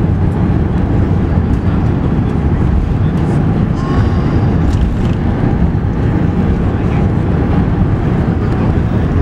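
Steady low rumble inside an Airbus A380's cabin as the airliner rolls along the ground after landing.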